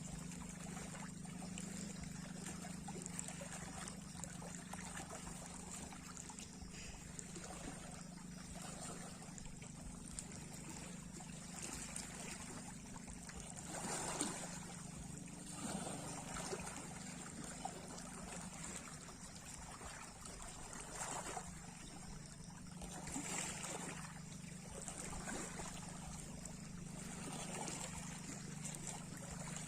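Small sea waves washing and trickling against the shore, swelling every few seconds, over a steady low hum.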